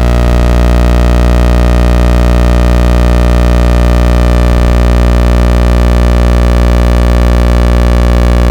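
Old thyratron tube wired as a sawtooth oscillator, giving a loud, steady, low buzzing tone rich in overtones. Its odd sound comes from the tube's worn, unusual characteristics.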